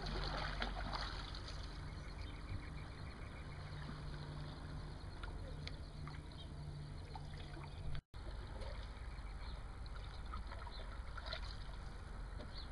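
Canoe paddle dipping and pulling through calm water, with small splashes and drips off the blade over a steady low background rumble. The sound cuts out for an instant about eight seconds in.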